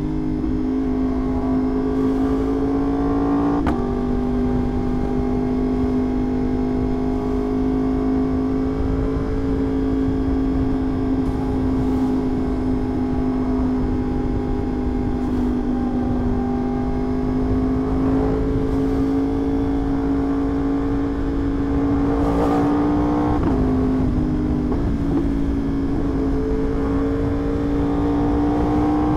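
Yamaha R1 sportbike's inline-four engine running at steady cruising revs over a constant rush of wind. The pitch holds nearly level, with a slight step up about three and a half seconds in and a brief drop and recovery around twenty-three seconds.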